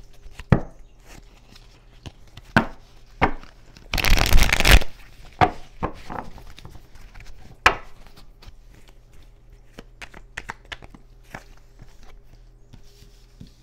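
Cards being handled: scattered light taps and clicks, with a short rustle lasting under a second about four seconds in.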